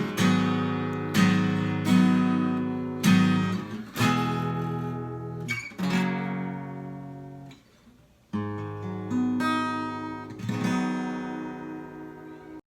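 Acoustic guitar strumming the closing chords of a song, each chord struck and left to ring out. About two thirds of the way through it falls nearly silent briefly, then a few more chords ring, and the sound cuts off suddenly near the end.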